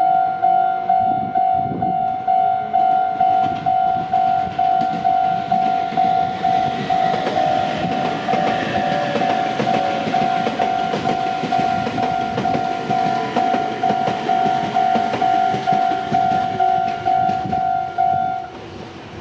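Japanese level-crossing warning bell ringing steadily, about twice a second, while an electric train passes over the crossing with a swelling rush and wheel clatter that fades again. The bell stops near the end as the crossing clears.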